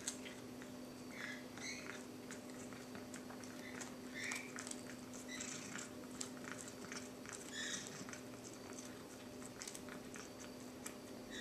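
Feral cat chewing a piece of fish off the carpet: a faint, irregular string of small wet clicks and smacks.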